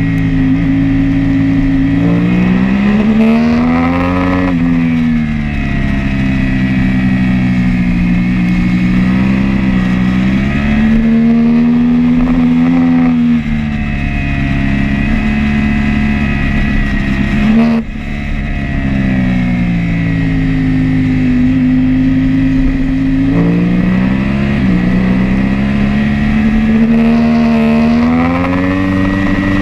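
Sport motorcycle engine heard from an onboard camera at racing speed. The revs climb and fall repeatedly through the laps, with sudden drops in pitch at gear changes, over a constant rush of wind noise.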